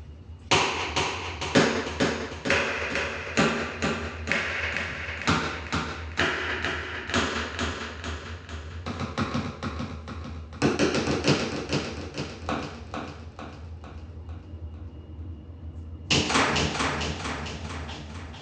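Keyboard keys pressed rapidly and repeatedly: fast runs of taps, easing off in a short lull about three-quarters of the way through, then a loud run again near the end.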